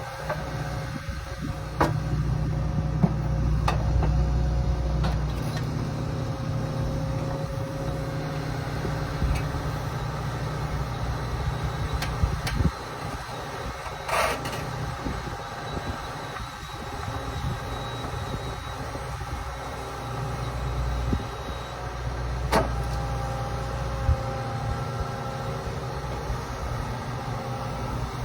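Excavator's diesel engine running with a steady low rumble that swells and eases as the machine works, broken by a few sharp knocks.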